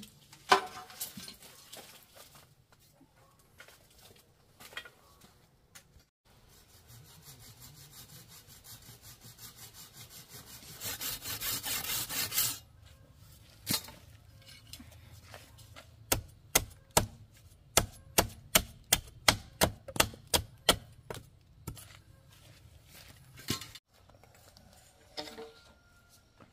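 Chopping wood with a blade: a few seconds of rapid scraping strokes that grow louder, then a run of about a dozen sharp chopping blows at roughly two a second, with a few scattered knocks around them.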